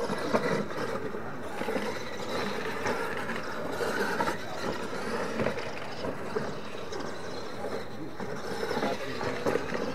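Radio-controlled monster trucks racing on a dirt track, their motors running continuously as they drive over the dirt and ramps.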